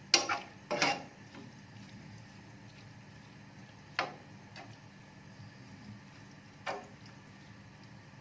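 A few sharp clinks and knocks of kitchen utensils against a cooking pot, two close together at the start, then one about four seconds in and another near the end, over a faint steady background hum.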